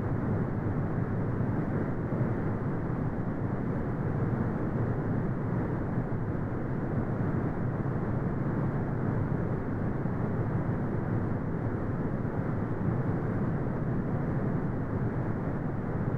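Continuous brown noise: a steady, deep rumbling hiss with no high end, unchanging throughout.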